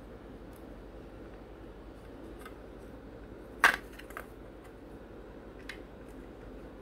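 Small clicks and taps of hard plastic model kit parts being handled and test-fitted together, with one sharp, louder click a little past halfway and a smaller one just after it, over a steady low hum.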